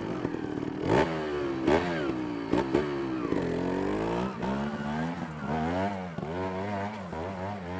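Trials motorcycle engine revved in quick blips, its pitch rising and falling again and again as the bike climbs. A few sharp clanks come in the first three seconds.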